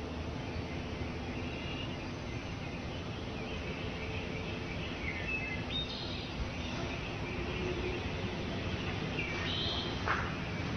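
Steady low background rumble and hiss with a few short, high bird chirps, some about halfway through and more near the end.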